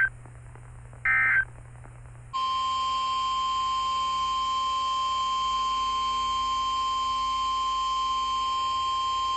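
NOAA Weather Radio alert signals: two short screechy blips of SAME digital data, then at about two and a half seconds in the 1050 Hz warning alarm tone starts, one loud steady single-pitch tone. This is the tone that sets off weather-radio receivers for an incoming warning.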